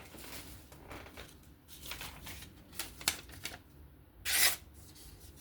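Light clicks and taps of folding knives being handled, with one short, louder rasp about four seconds in.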